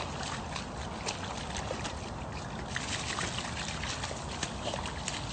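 Wet splashing and squelching of a dog rolling and thrashing in a muddy puddle, with many small crackles and clicks.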